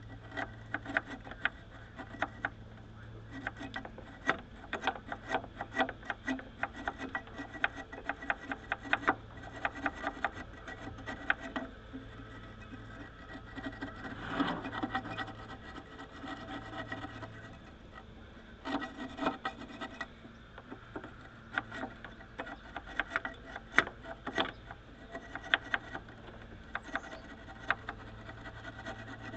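Hand scraping and rubbing at a car part being cleaned, with many small clicks and taps of tools and metal parts, over a steady low hum.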